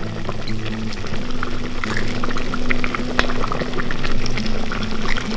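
Broth ladled from a kazan and poured into an earthenware bowl of stewed meat: liquid pouring and splashing, with light clinks of the metal ladle, over background music with held low notes.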